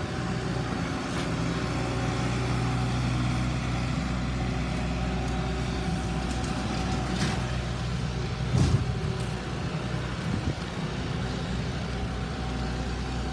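A heavy engine running steadily with a low hum, with a single knock about eight and a half seconds in.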